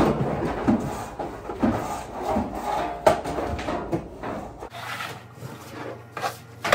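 Packaging being handled: rubbing and scraping with irregular knocks and clicks, thinning out to a few sharp taps in the second half.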